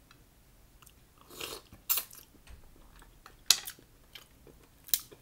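Close-up eating sounds of someone chewing mussel meat: a soft rush about a second and a half in, then three sharp clicks about a second and a half apart.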